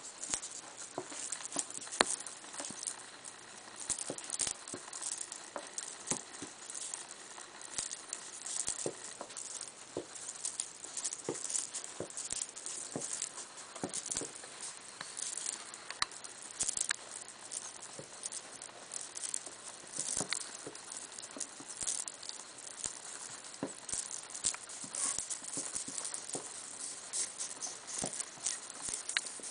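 A mating pair of African pygmy hedgehogs moving on fleece bedding: steady rustling with many small, irregular clicks and taps.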